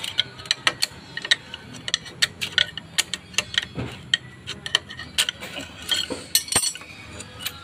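Sharp metallic clicks and taps, several a second and irregular, as a flat metal tool is worked into the joint between a Suzuki Raider 150's cylinder head and cylinder to pry the head loose.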